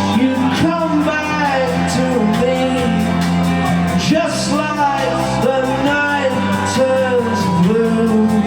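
Live rock band playing a song: drums keeping a steady cymbal beat under guitar and a sliding, singing-like melody line.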